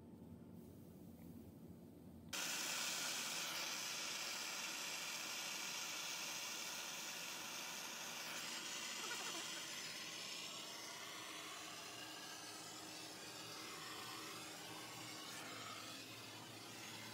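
Plumber's gas torch hissing as its flame heats a copper pipe fitting for soldering; the hiss starts abruptly about two seconds in and slowly eases off.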